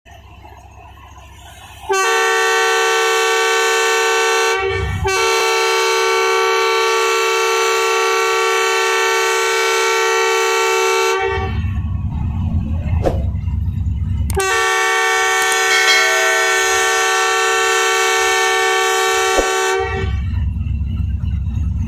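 Pakistan Railways ZCUP-30 diesel locomotive horn sounding two long, steady departure blasts. The first starts about two seconds in and lasts about nine seconds, with a short break near its start. The second runs about five seconds, and a low rumble fills the gap between them.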